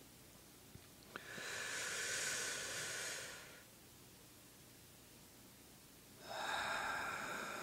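A person's slow, deep breaths close to the microphone: two long breaths a few seconds apart, the second still going at the end, over a faint steady hiss. A small click comes just before the first breath.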